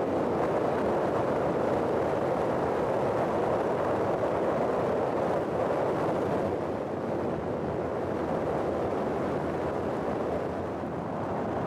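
Steady rush of tyre and wind noise from a car driving on a paved road, easing slightly about seven seconds in.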